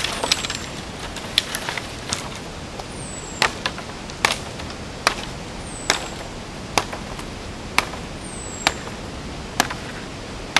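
Wood being chopped: sharp knocks, irregular at first and then settling about a third of the way in to a steady stroke a little faster than once a second. A bird's short, high, falling whistle repeats about every three seconds over a steady outdoor hiss.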